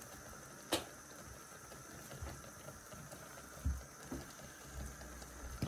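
Wool fibre in a dye bath simmering in a stainless steel roasting tin on a gas hob, a steady low bubbling hiss. A sharp click comes about a second in, and a few soft low thumps follow later.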